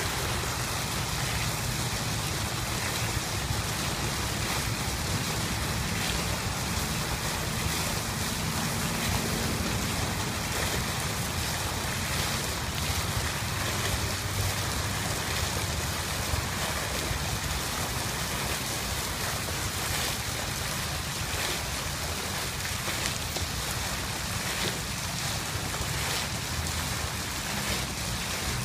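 Fountain water jet falling back into its pool, a steady rushing splash, with a low rumble underneath.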